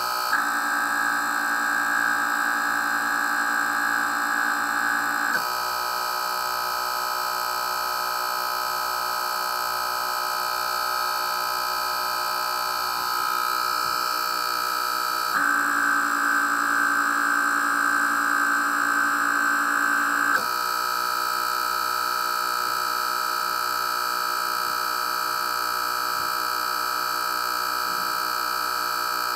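Small DC diaphragm air pumps running under programmed motor-driver control, giving a steady electric whine over a low, regular pumping pulse. The sound switches abruptly between two speed settings, about 5 s in, again about 15 s in and again about 20 s in.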